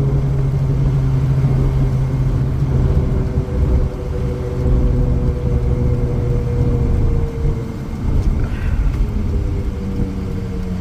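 A Ford 6.0 Powerstroke V8 turbo-diesel van, heard from inside the cab as it slows into a stop: a steady low engine and road drone that falls a little in pitch as the van loses speed.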